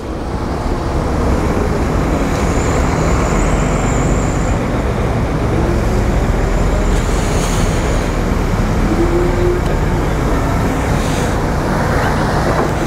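Livestock lorries' engines running in a yard, a steady low rumble of traffic noise that fades in over the first second.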